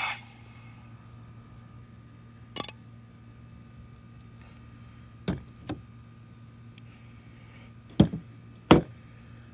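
A few scattered sharp knocks and clicks, the two loudest close together near the end, over a steady low electrical hum.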